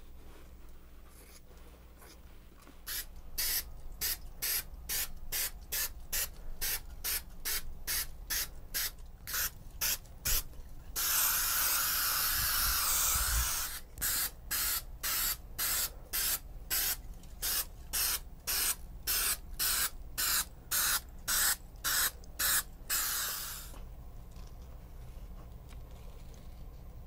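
Aerosol spray adhesive can sprayed in quick short bursts, about two a second, with one unbroken spray of nearly three seconds near the middle. The glue is being coated onto foam and onto satin to bond the two together.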